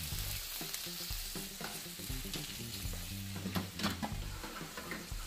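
Hot food sizzling in a PowerXL Air Fryer Grill oven, with a few metallic clicks and clinks about two-thirds of the way in as the wire fry basket is slid out.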